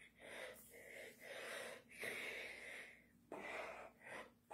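A deaf man's breathy, unvoiced exhalations and mouth noises as he signs, coming as a string of short puffs, each about half a second to a second long.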